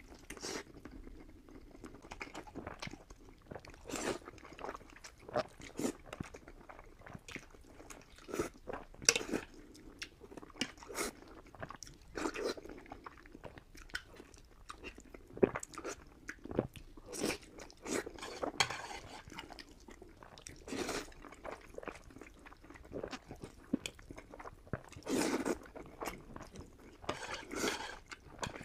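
A person chewing and biting a mouthful of noodles and fried pork, with irregular sharp crunches.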